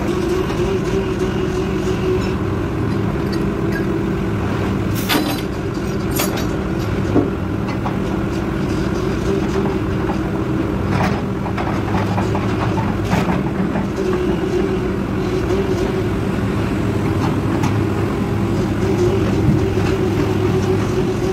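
Excavator's diesel engine running steadily under load as it works its way onto a low-bed trailer, with a few sharp knocks scattered through.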